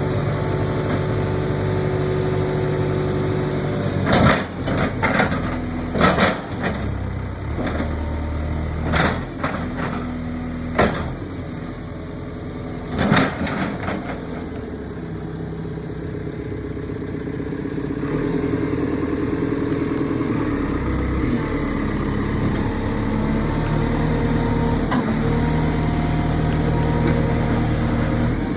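JCB 3CX backhoe loader's diesel engine running, with a handful of sharp clanks between about four and thirteen seconds in. From about eighteen seconds in the engine picks up revs and stays higher.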